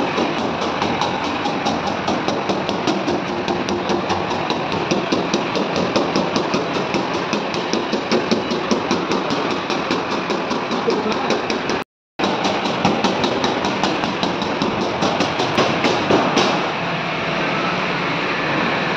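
Steady machine running with fast, even ticking and metal knocks over it. It cuts out briefly about twelve seconds in.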